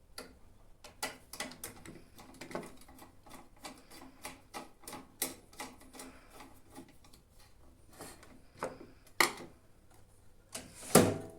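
Irregular clicks and taps of hands working inside an unplugged microwave oven while fitting a replacement high-voltage diode, with two louder knocks near the end, the last and loudest about a second before the end.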